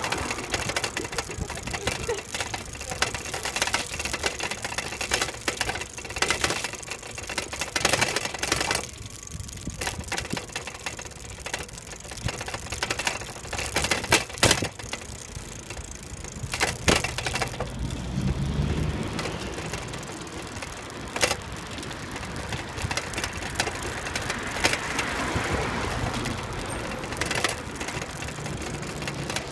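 Irregular rattling clicks and knocks, with rolling road noise, from a camera rig shaking as it rolls over a paved path.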